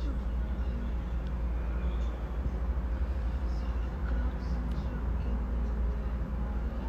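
Steady low rumble with a faint background hiss and no distinct events.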